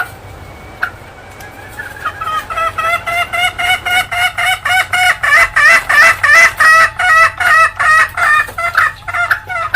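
Junglefowl hen cackling (ngekek): a fast run of loud, pitched clucks at about four a second, starting about two seconds in, building up and thinning out near the end. Two short sharp clicks come before it.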